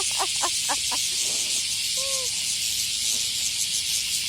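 Cicadas droning in a steady, loud, high hiss. A rapidly pulsing insect call fades out in the first second, and a single short note sounds about two seconds in.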